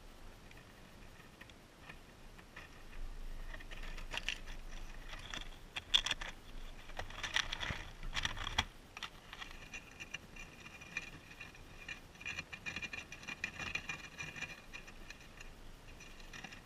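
Guinea pigs moving about in wood-shaving bedding right at the camera: rustling, scraping and clicking, with sharp knocks as one pushes against the camera in the middle, then a stretch of fast, scratchy clicking.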